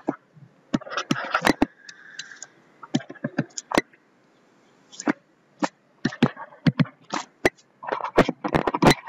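Pen stylus tapping and scratching on a tablet surface as dashed lines and numbers are handwritten: a string of sharp, irregular clicks with short scratchy strokes between them.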